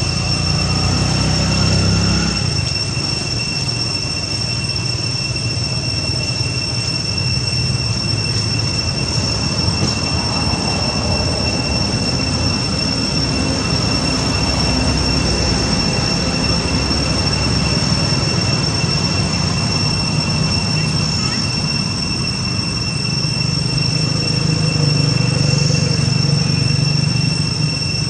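Continuous outdoor background noise with a steady high-pitched whine in two constant tones, one an octave above the other; a low rumble swells at the start and again near the end.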